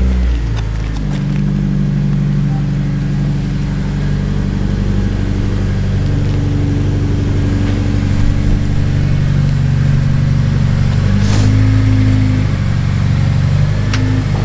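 Car engine idling steadily, its pitch shifting slightly a few times, with a sharp click about 11 seconds in.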